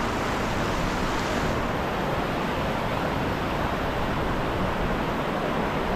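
Steady rushing of falling water from the waterfall in Gordale Scar, an even noise with no breaks.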